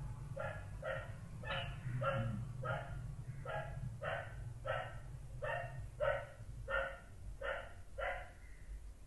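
Short animal calls repeated at an even pace, about two a second, stopping near the end.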